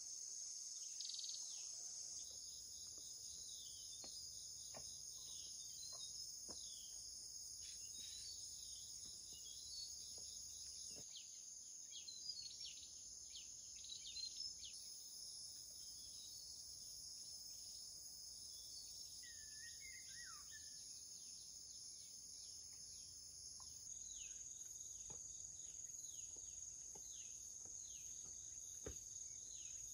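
Steady high-pitched drone of forest insects, with scattered short falling bird chirps and one curling bird call about twenty seconds in.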